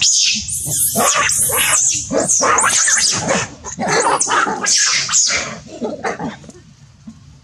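Macaques screaming: a rapid run of loud, high-pitched shrieks that fade out after about five and a half seconds.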